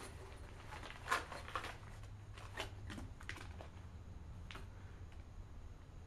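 Faint handling sounds of a fabric first-aid pouch with heavy-duty zippers being unzipped and opened: a few scattered rustles and clicks, the loudest about a second in, over a low steady hum.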